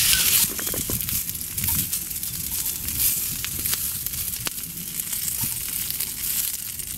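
Sliced vegetables sizzling in oil in a cast iron skillet over a wood fire. The steady hiss is broken by scattered light clicks as chopsticks turn the pieces against the pan.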